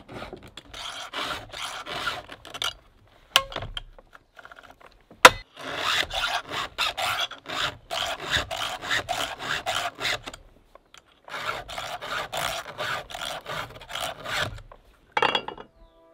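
Round chainsaw file rasping across the cutters of a saw chain as it is sharpened by hand, in runs of quick back-and-forth strokes with short pauses between. A couple of sharp clicks fall in the pauses, the loudest about five seconds in.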